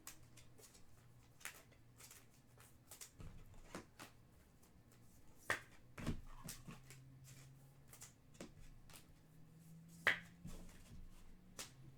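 Trading cards being handled and flipped through by hand: faint, irregular clicks and snaps of card stock, with a few louder snaps about halfway and near the end, over a faint low hum.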